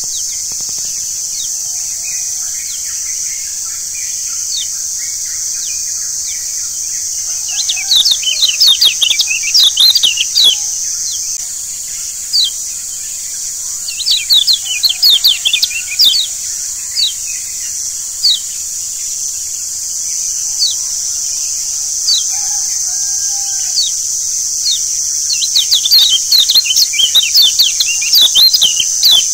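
Lombok yellow white-eye (kecial kuning) singing in bursts of rapid, high, sharp chirps. The densest bursts come about a quarter of the way in, around the middle and near the end, with single chirps between. Under them runs a steady high insect-like hiss.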